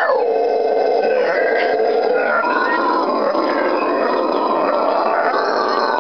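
A pair of red howler monkeys howling, a loud, unbroken, deep roaring call. It slides down in pitch in the first half-second, holds steady, and starts to climb again near the end.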